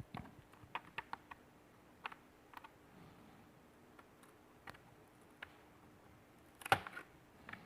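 Light plastic clicks and taps from a laptop's plastic casing being pried and handled, with a louder cluster of knocks a little before the end.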